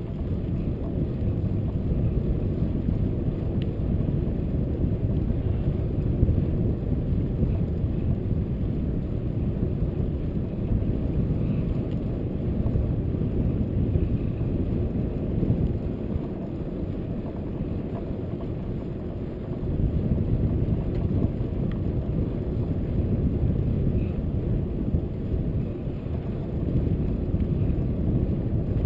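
Wind buffeting the microphone of a bicycle-mounted camera while riding along a paved road, with tyre and road rumble: a steady low rumble that swells and dips, easing for a few seconds a little past halfway and then picking up again.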